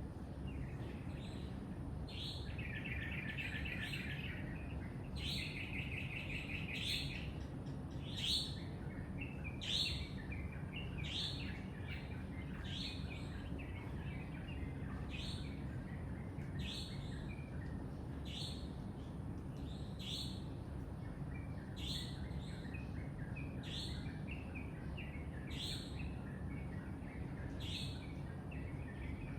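Birds singing: one bird repeats a short, high, falling note about every second and a half, while in the first several seconds another bird gives two fast, buzzy trills. A steady low rumble sits underneath.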